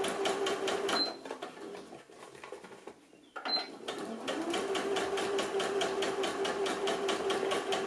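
Electric sewing machine stitching a straight seam, its motor hum under a rapid, even clatter of stitches. It stops about a second in, stays quiet for about two seconds, then starts again and runs on. A short high beep sounds as it stops and again as it restarts.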